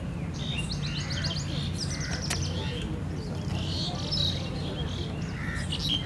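Small birds chirping: quick runs of high chirps in the first couple of seconds, then a few scattered calls, over a steady low hum.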